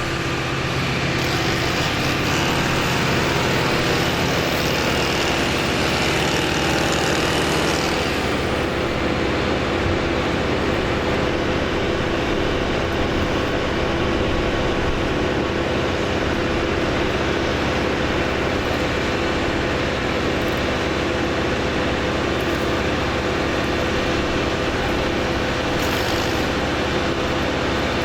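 An engine running steadily at a constant speed. About eight seconds in, the higher hiss in the sound drops away.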